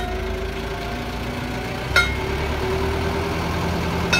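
Rough terrain crane's diesel engine running at idle while its hydraulic outrigger beam extends, a steady tone sitting over the engine drone. Two sharp clicks, about two seconds in and near the end.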